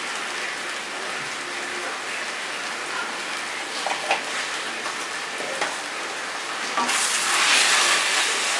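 Onion-tomato masala sizzling in an iron kadai while a spatula scrapes and stirs the freshly added spice powders through it; the sizzle grows louder about seven seconds in.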